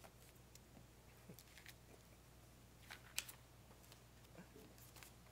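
Near silence: room tone with a steady low hum and a few faint, short clicks, the sharpest about three seconds in.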